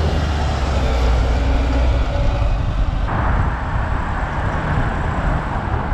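Road traffic: a large motor vehicle's low engine rumble close by, fading out about two seconds in, over steady road and wind noise.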